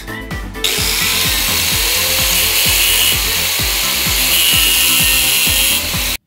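Grinder grinding a flat spot onto an RC car's electric motor shaft, a loud steady hiss that cuts off suddenly just before the end. It plays over background music with a steady beat.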